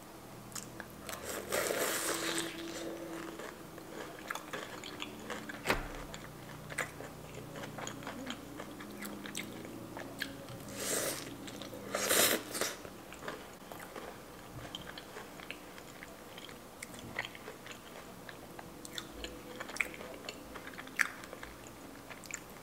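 Close-miked biting and chewing of a fried peach mango pie dipped in halo-halo: crunching bites of the crust and wet mouth sounds, with a louder bite about twelve seconds in.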